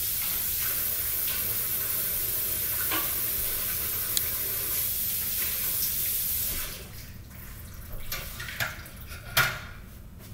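Water running from a kitchen tap while hands are washed, the flow stopping sharply about two-thirds of the way through. After it stop come a few light knocks and clatters.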